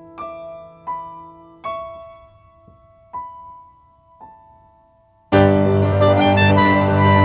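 Background music: slow, single piano notes, each struck and left to ring and fade. About five seconds in, a much louder and fuller arrangement of several instruments comes in.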